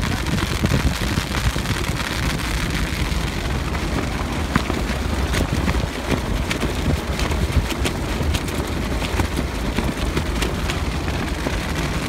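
Jeep driving in pouring rain with a tarp wrapped over it as a roof: steady wind buffeting and road rumble inside the cabin, with the billowing tarp overhead. Scattered sharp ticks of rain come in from about four seconds in.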